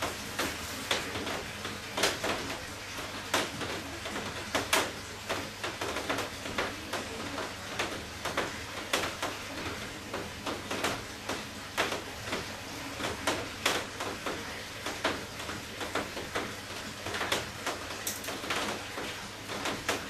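Grout piping bag being squeezed and handled as joint mortar is pressed out, with its material crinkling and rustling in irregular sharp crackles several times a second.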